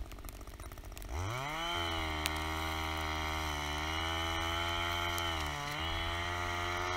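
Gas-powered ice auger revving up about a second in and running steadily as it bores a hole through lake ice. Its pitch dips briefly once, then it winds down near the end.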